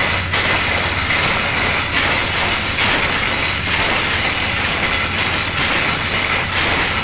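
Loud, steady engine-room machinery noise: a constant low hum under a dense mechanical din that does not let up.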